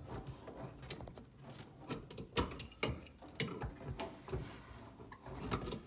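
Irregular knocks, clicks and scraping of hands working a kitchen sink loose from its countertop opening, with a few sharper knocks about two and a half seconds in.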